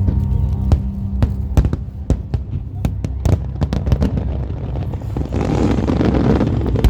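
Aerial fireworks bursting: a string of sharp bangs at uneven intervals, with a dense spell of crackling about five seconds in, over a steady low hum.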